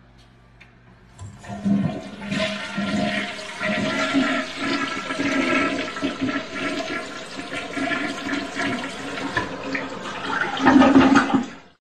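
Toilet flushing: after a faint hum, a long rush and swirl of water starts about a second in, grows loudest near the end and cuts off suddenly.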